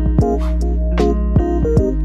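Background music with a sustained bass, a steady drum beat with high ticks, and keyboard notes.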